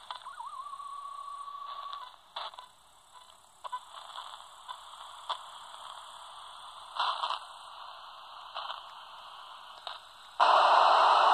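Albrecht AE2990 AFS handheld CB radio's speaker while tuning across the 27 MHz band: a steady whistle tone for the first two seconds, then faint receiver hiss broken by short clicks and brief bursts. About ten seconds in, loud static hiss starts abruptly.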